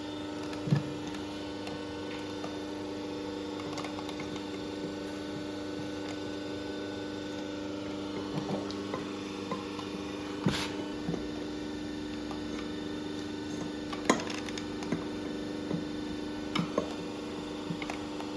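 Steady electrical hum in a workshop, with scattered light clicks and knocks of parts and tools being handled; the sharpest knocks come about ten and fourteen seconds in.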